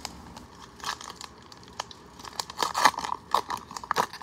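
A 2020 Bowman baseball card pack's wrapper being torn open by hand, crinkling in an irregular run of crackles that is loudest a little under three seconds in.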